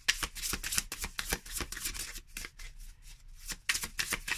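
A deck of matte-finish tarot cards being shuffled by hand: a quick stream of papery card clicks, thinning out for about a second past the middle.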